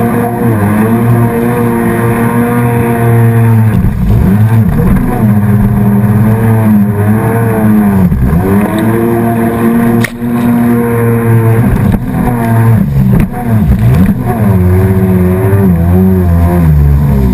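Jet ski engine running hard, its pitch dropping and climbing back several times as the throttle is eased and reapplied through turns, with water rushing and splashing close by.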